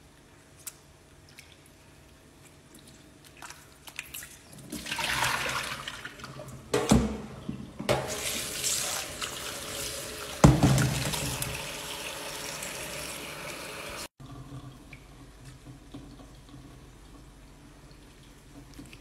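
Faint splashes of hands rinsing morel mushrooms in a stainless steel bowl of water in a sink. A kitchen tap then runs into the bowl for several seconds and stops suddenly. Two sharp knocks stand out over the water, the louder one about halfway through.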